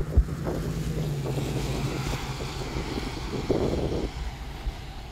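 Wind buffeting the microphone with a low rumble and a couple of thumps right at the start, while a vehicle drives past on the rain-wet road, its tyre hiss swelling and fading over the middle seconds.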